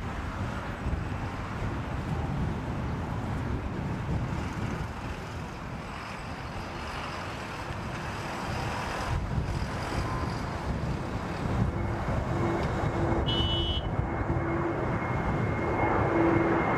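Jet noise from a Kawasaki P-1 patrol aircraft's four turbofan engines as it flies low with gear down, a steady rushing sound. A high engine whine comes in about two-thirds of the way through, and the noise grows louder near the end as the aircraft passes overhead.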